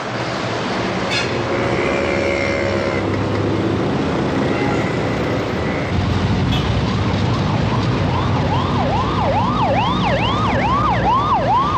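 Busy road traffic noise, over which, about seven seconds in, an emergency vehicle's siren starts up: a fast rising-and-falling yelp of about two and a half cycles a second.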